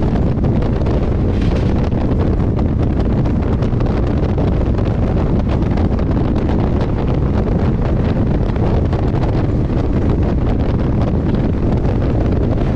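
Steady rumble and rattle of a passenger train running at speed, heard from on board, with wind buffeting the microphone.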